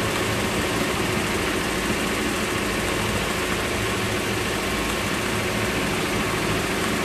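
Small boat's gasoline motor running steadily under way at cruising speed, a constant drone mixed with wind and the rush of the wake.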